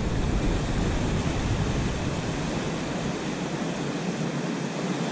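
Steady rush of water churning out from a dam's sluice below the concrete wall. A low wind rumble on the microphone fades about two seconds in.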